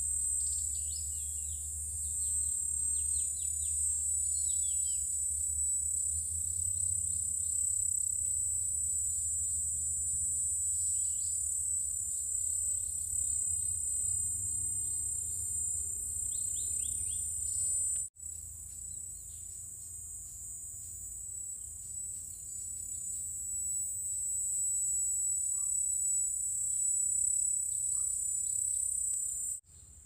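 Steady high-pitched drone of forest insects, with many quick bird chirps over it through the first half that thin out later. The sound drops out suddenly for a moment about 18 seconds in.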